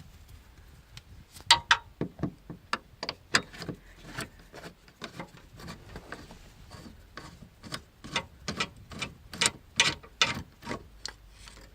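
A 17 mm bracket bolt being unscrewed with a wrench after being broken loose: a run of irregular clicking, rasping strokes, some in quick clusters, starting about a second and a half in.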